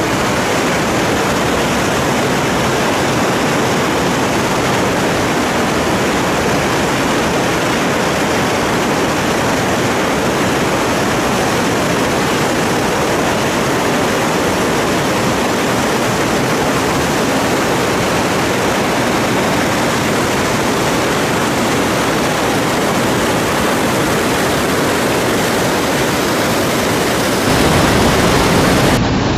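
Whitewater rapids on a large mountain river: a loud, steady rush of churning water. Near the end it grows louder and deeper.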